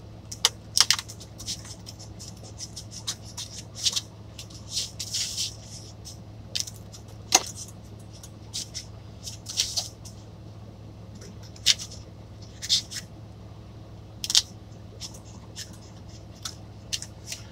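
Knife cutting a thin, charred-edged pizza crust on a paper plate: irregular crunches, clicks and scrapes as the blade saws through and hits the plate, over a steady low hum.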